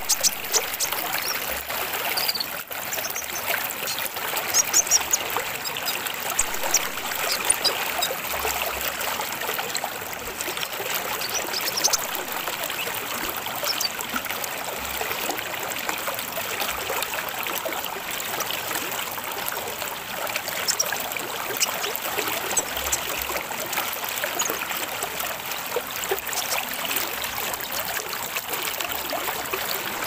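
Steady trickle of running water, with a sunbird's short, high chirps scattered over it, most of them in the first dozen seconds.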